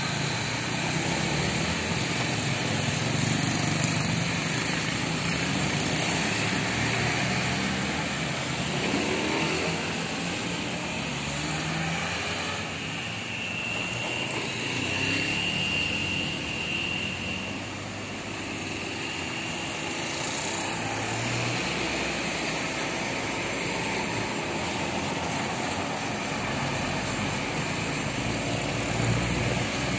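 Road traffic of motorcycles riding past, then a large bus driving by near the end, its engine sound low and heavy.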